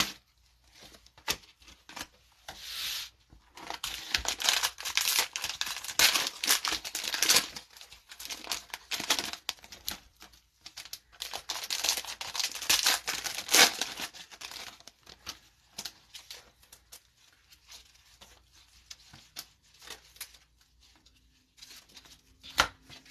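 Cellophane wrapper of a Mosaic football cello pack crinkling and tearing as it is ripped open by hand. The crackle is dense for about ten seconds, then gives way to faint scattered clicks as the cards inside are handled.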